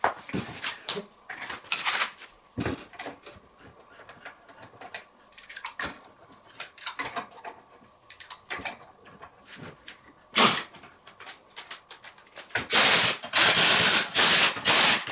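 Knocks and clatter as a car wheel is hung on a trailer hub and the nuts are started, then a power tool runs in several loud bursts near the end, driving the wheel nuts tight.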